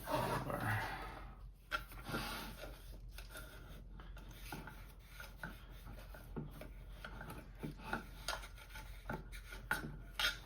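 Irregular rubbing and scraping on a small metal instrument case by hand, with scattered light clicks, louder at the start.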